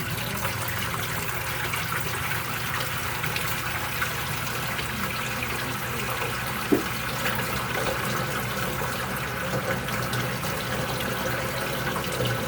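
Water running steadily into a Samsung top-load washing machine's drum as it fills, over a steady low hum, with one sharp click about halfway through.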